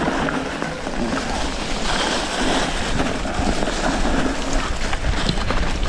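Steady rushing noise from an electric mountain bike riding a dirt forest track: wind buffeting the camera microphone mixed with tyre noise on the ground, a little louder and hissier about two seconds in.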